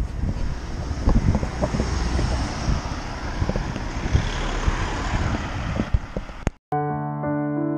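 Wind buffeting the microphone, with low rumbling and scattered knocks, cut off suddenly about six and a half seconds in. Electric piano music starts right after, with sustained chords.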